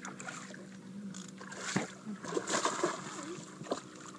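Water splashing beside a boat as a hooked striped bass is brought up to the surface, with a busy patch of splashes and knocks about two seconds in, over a steady low hum.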